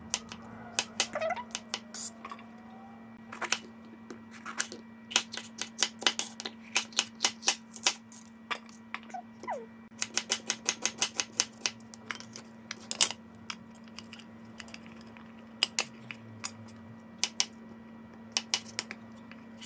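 Knife chopping food on a cutting board: sharp taps in quick irregular runs, several a second, with pauses between runs. A steady low hum runs underneath.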